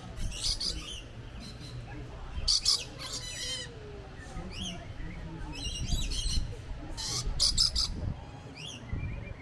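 Rainbow lorikeets calling: short, shrill bursts of chirps and screeches every second or two, with a rapid trill about three seconds in and the loudest calls about two and a half and seven and a half seconds in.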